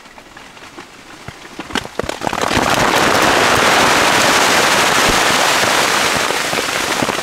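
Ice falling from storm-shaken fir trees and pelting the tent's fabric. It starts as scattered hits and, about two seconds in, becomes a dense, loud rattle that keeps on.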